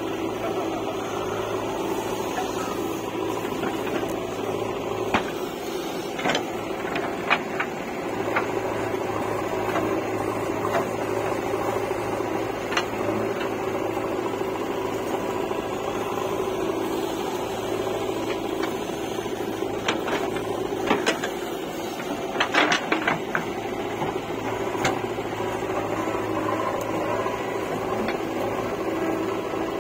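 JCB 3DX backhoe loader's diesel engine running steadily under digging load as the backhoe bucket scoops soil. Scattered sharp knocks and clanks, with a cluster about twenty seconds in.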